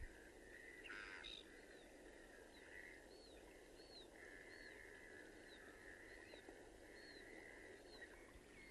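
Faint outdoor background over a steady low hiss, with a bird repeatedly giving short high chirps, roughly one or two a second.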